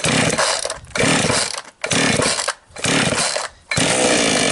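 Chinese 5200 two-stroke chainsaw being pull-started with the choke on: five quick pulls of the starter cord, each cranking the engine for under a second, the last one a little longer.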